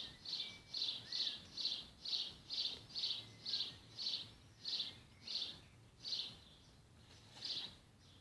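A bird calling over and over: short high calls about two a second, spacing out and stopping near the end.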